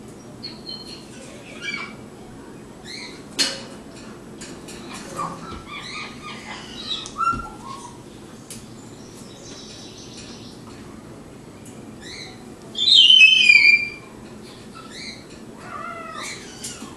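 Young raccoon and Bernese mountain dog puppy playing through cage bars: a string of short, high, bird-like chirps and squeaks with scattered sharp clicks. About 13 seconds in comes one loud, high squeal that falls in pitch.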